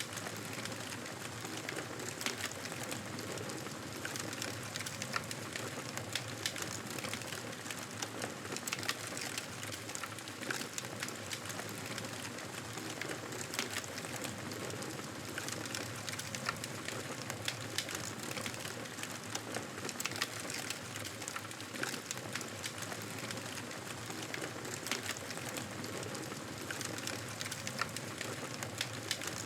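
Wood fire crackling in a fireplace: a steady hiss with frequent small sharp pops and snaps scattered throughout.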